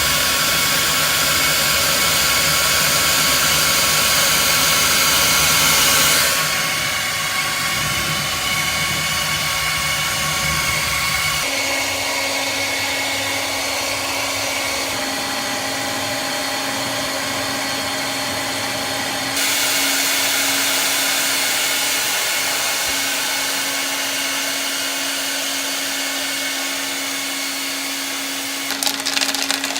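Hair dryer running steadily, thawing the chunk of ice that has built up inside the fridge. Its tone changes abruptly three times.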